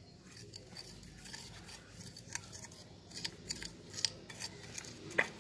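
Small plastic spoon stirring and scraping a dry mix of ground sesame, fenugreek seeds and sugar around a porcelain bowl: an uneven run of faint scratchy strokes, with a few sharper ticks in the second half.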